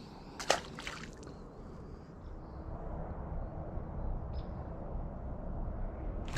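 A small fish released back into the creek with one short splash about half a second in, followed by a few fainter clicks. After that comes a steady low outdoor rush that builds a little.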